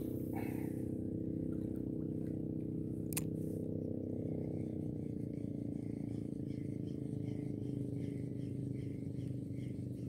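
An engine running steadily, its pitch easing down a little about halfway through, with a sharp click just after the start and another about three seconds in.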